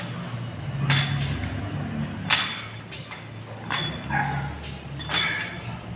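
A man lifting a weight for shoulder raises, breathing out hard with each repetition, about once every second and a half. A steady low hum runs underneath.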